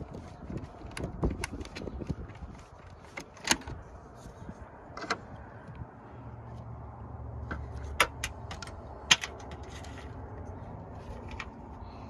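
Clothing rubbing against the microphone and handling noise as the phone is moved about, with several sharp clicks and taps; the loudest come about three and a half, eight and nine seconds in.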